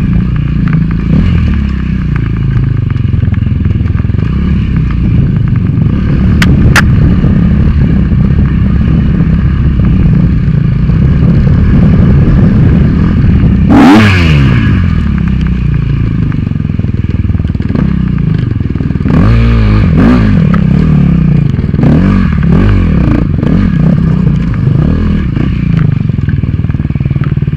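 Dirt bike engine at race pace, revving up and down continually through the throttle, with clatter and scraping from the bike over rough ground. About halfway there is one sharp, loud knock, the loudest moment.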